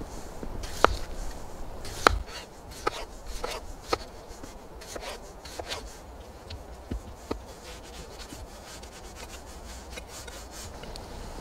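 Large knife slicing a raw potato into rounds on a wooden cutting board: irregular knocks as the blade goes through and hits the board, with the blade rubbing through the flesh. The strongest knocks come in the first two seconds and grow fainter after that.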